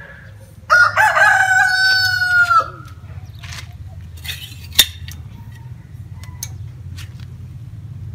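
A rooster crowing once, a loud call of about two seconds that bends down in pitch at its end, followed by a few sharp clicks.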